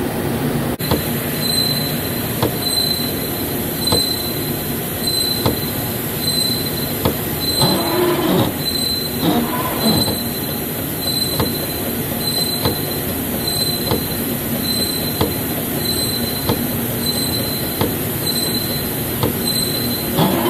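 Horizontal boring machine running a spot drill in a drill chuck against a steel block: steady machining noise with a high squeal that pulses evenly, about three times every two seconds, and scattered light ticks.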